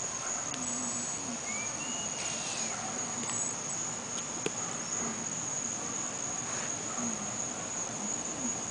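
Crickets trilling in one steady, unbroken high-pitched tone.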